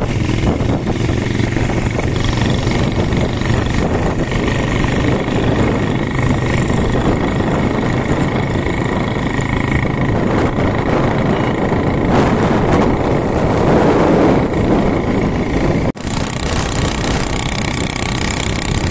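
Motorcycle engine running while riding along, with heavy wind noise on the microphone that swells louder about twelve seconds in. The sound drops out briefly about sixteen seconds in.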